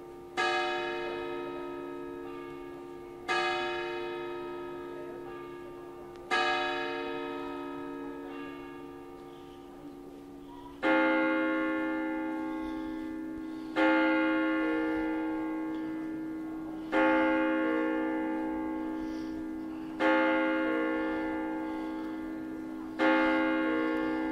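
Church tower bells struck one stroke at a time, about every three seconds, each stroke ringing on and fading. Three strokes sound on one bell; about eleven seconds in, a different, louder bell takes over and strikes five times.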